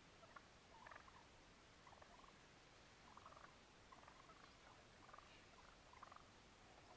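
Wild turkeys calling softly: short faint calls about once a second from a flock around a strutting tom.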